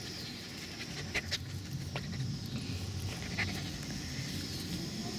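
A ten-week-old wolfdog pup panting as it rolls on its back in the grass, with a few sharp clicks between about one and three and a half seconds in.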